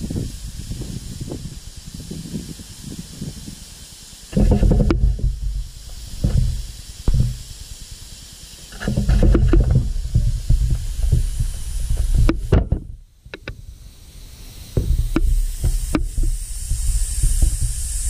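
Wind buffeting the microphone in irregular low gusts, over a steady faint hiss, with a few sharp clicks.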